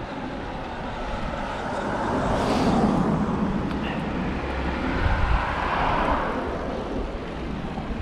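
Wind rushing over the camera microphone and tyre noise from a road bike riding along a paved street, swelling and easing over several seconds.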